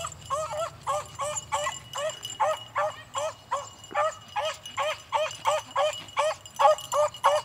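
Beagles baying in quick, repeated high yips, about three a second without pause, the sound of hounds giving voice while running a scent trail.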